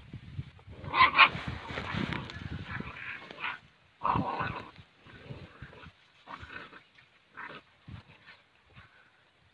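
Two dogs fighting: bursts of snarling, loudest about a second in and again at about four seconds, then shorter, quieter ones.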